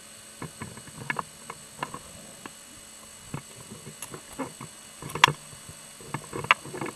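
Irregular sharp clicks and short knocks picked up underwater by a diver's camera, two of them louder about five and six and a half seconds in, over a faint steady hum.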